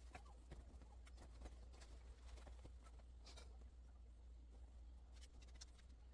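Near silence: faint room tone with a few scattered light clicks and ticks.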